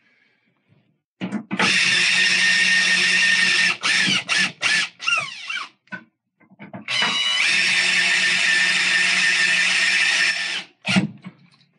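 Cordless drill/driver driving two Phillips screws into the dryer's top panel: two long, steady runs of the motor a few seconds each, with short trigger blips between them where the motor speeds up and slows down. A single sharp knock near the end.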